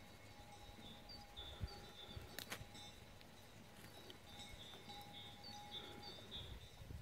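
Faint birdsong: small birds giving short, high chirps over and over, with a low bump and a single sharp click between about one and a half and two and a half seconds in.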